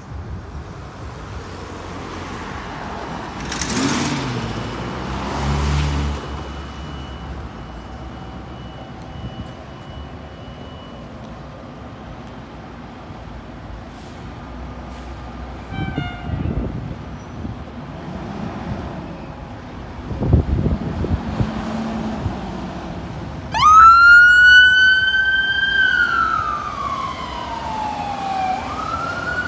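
Passing street traffic for most of the time. About three-quarters of the way in, a fire engine's siren starts up with a quick rise into a loud wail that slowly falls, then winds up again near the end, as the engine pulls out on an emergency call.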